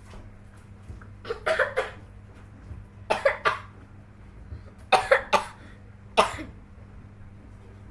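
A person coughing hard and loudly in fits: a run of several coughs about a second in, another around three seconds, a third about five seconds in, then a single cough near the end.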